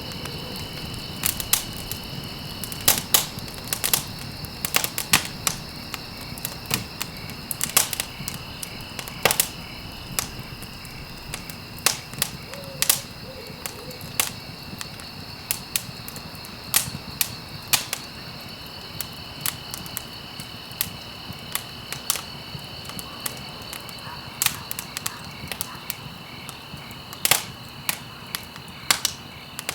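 Wood campfire crackling: irregular sharp pops and snaps, several a second and varying in loudness, over a steady low hiss of burning.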